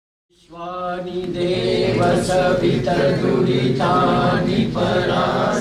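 Voices chanting a Sanskrit Vedic mantra in a steady, sustained drone, starting about half a second in after a moment of silence.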